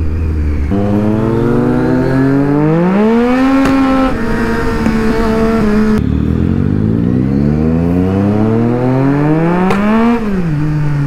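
Triumph Street Triple's three-cylinder engine accelerating through the revs, its pitch climbing for a few seconds and then holding. About six seconds in, a second climb begins that rises higher and falls quickly near the end, with a short sharp click just before the fall.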